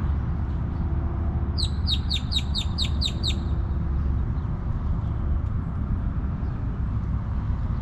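A bird calling a quick series of about nine short, sharp notes, each dropping in pitch, lasting under two seconds, over a steady low rumble.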